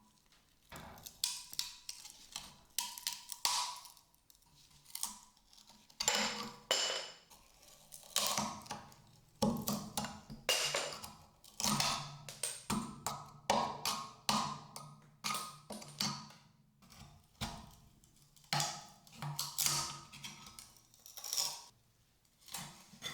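A series of sharp knocks and clicks, roughly one or two a second, some with a brief metallic ring: hand tools and metal being handled on a workbench.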